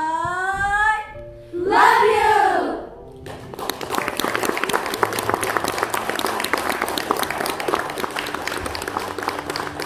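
A girls' choir sings two short phrases, one sliding upward and the next rising and falling. About three seconds in, audience applause begins and holds steady.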